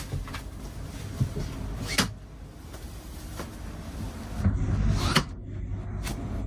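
A door being handled: a handful of separate knocks and clicks, spaced irregularly, over a low rumble.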